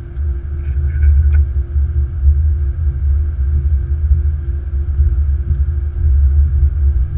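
Flight-deck noise of an Airbus A330-200 taxiing: a steady low rumble from the airliner rolling on concrete with its engines running, with a steady hum above it.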